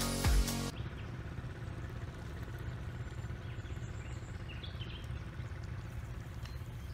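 Background music cuts off under a second in, followed by outdoor ambience: a steady low rumble with scattered small bird chirps.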